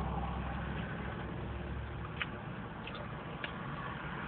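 Steady low rumble of a car engine idling, heard from inside the car's cabin, with a few faint clicks about halfway through.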